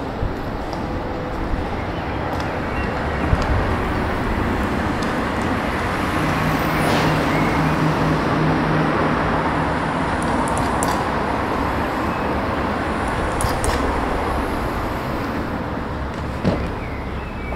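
Road traffic on a town street: a motor vehicle passes, its engine and tyre noise swelling through the middle and then easing off, with a few light knocks.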